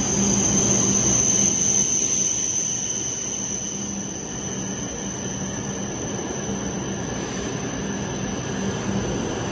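E7 series Shinkansen bullet train running slowly past along a station platform: a steady rushing noise with a thin, high whine held on one pitch and a low hum beneath.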